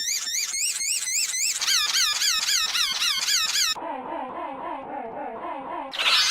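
A sad wheezing sound effect, pitch-shifted and looped: a high, squeaky rise-and-fall wheeze repeating about three times a second. A little under four seconds in it drops to a much deeper version. Near the end it jumps back high and louder.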